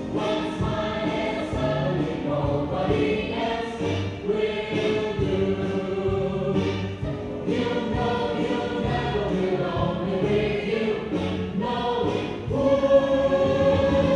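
Choral music: a choir singing held, layered notes that change chord every second or so.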